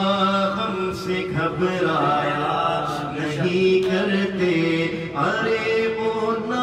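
Man singing a naat (Urdu devotional poem) into a microphone, drawing out long held notes with a few short breaths between phrases.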